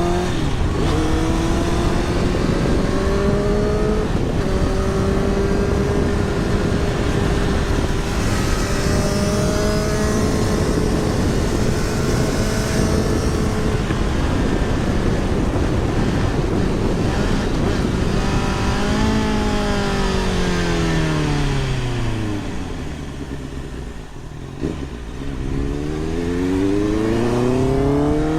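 Motorcycle engine heard from a helmet-mounted microphone while riding, under steady wind rush. The engine pitch climbs early on, holds steady while cruising, falls as the bike slows about two-thirds of the way through, then rises again near the end as it accelerates.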